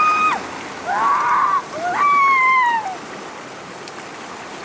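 Puppies whining: three high, drawn-out cries in the first three seconds, each rising then sliding down in pitch, over the steady rush of floodwater.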